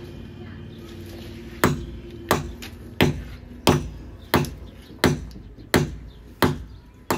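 Sharp knocks at an even, hammering pace, about three every two seconds, beginning about a second and a half in, with a faint steady hum underneath at first.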